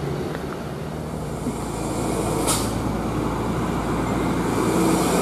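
Hino diesel tanker truck approaching up the road, its engine growing steadily louder, with a short hiss about two and a half seconds in.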